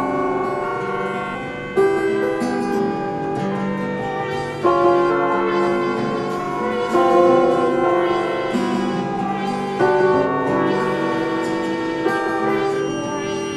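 Instrumental music: sustained chords, with a new chord struck about every two to three seconds.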